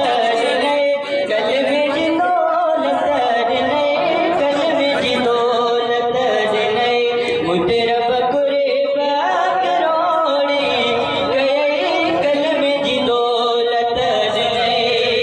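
A man singing a Sindhi hamd (devotional praise poem to God) unaccompanied into a microphone, in long held, wavering melodic lines.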